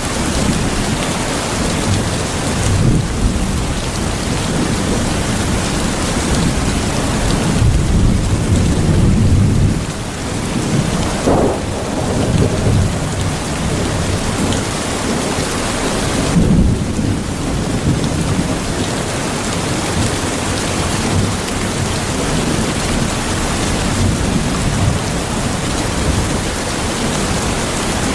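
Steady heavy rain with low rolling rumbles of thunder, loudest about eight to ten seconds in.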